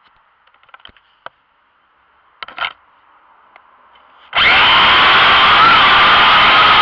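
A few faint clicks and a short knock, then the Spyrit Max drone's motors and propellers start suddenly about four seconds in. They run on with a loud, steady buzzing rush and a whine that wavers slightly in pitch.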